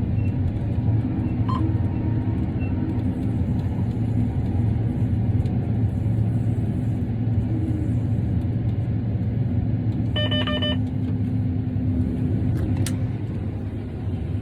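John Deere S-Series combine running steadily, a continuous low rumble. About ten seconds in, a short pulsing electronic beep sounds, and a single sharp click follows a couple of seconds later.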